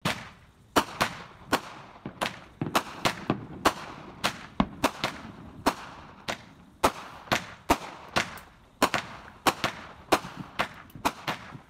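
Fireworks going off: a long, irregular string of sharp bangs, about two or three a second, each with a short fading tail.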